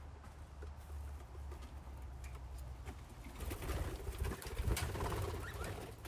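Budgies in a colony cage, quiet at first, then a busy stretch of chattering and wing fluttering starting a little past halfway, over a low steady hum.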